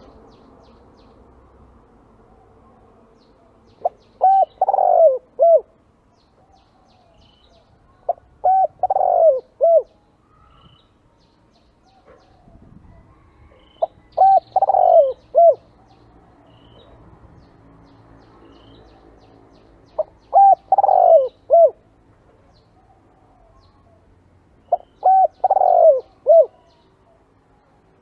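Spotted dove cooing: five short phrases of several notes each, one about every five to six seconds. Faint chirps from small birds sound between the phrases.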